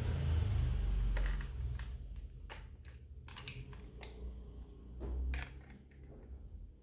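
A run of irregular light clicks and clacks, about a dozen, over a low rumble that is strongest in the first second and swells again briefly about five seconds in.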